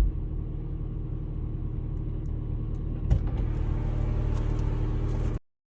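Car engine running steadily with a low rumble, a single knock about three seconds in; the sound cuts off suddenly near the end.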